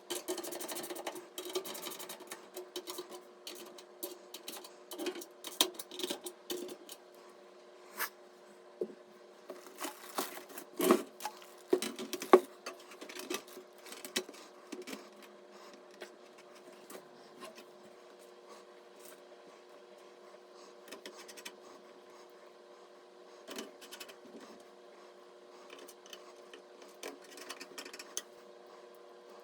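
Hands handling and fitting computer parts: irregular clicks, taps and scrapes of plastic and metal, busiest in the first half with two sharper knocks about eleven and twelve seconds in, then sparser, over a faint steady hum.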